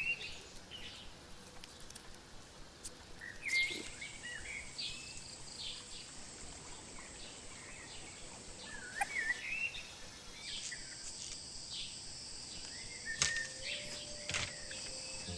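Outdoor ambience of birds chirping in short, scattered calls, over a steady high insect buzz that grows stronger in the second half, with a couple of sharp clicks near the end.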